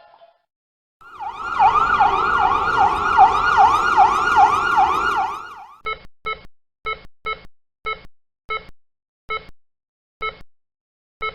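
An emergency siren wails fast up and down, about two and a half sweeps a second, then fades out. It is followed by a run of short electronic heart-monitor beeps that come further and further apart.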